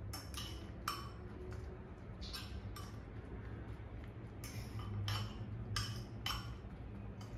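A metal utensil clinking and scraping against a bowl in short, irregular strokes while stirring bread pieces into beaten egg.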